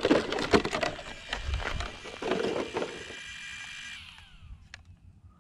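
Team Corally Kagama XP 6S RC truck being powered down: its electronics whine steadily under scattered clicks and knocks of handling. About four seconds in, the whine falls away and stops as the power is switched off.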